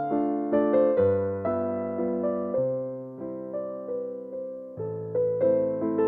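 Slow background piano music: notes and chords struck about twice a second, each fading away, over low bass notes that change every second or two.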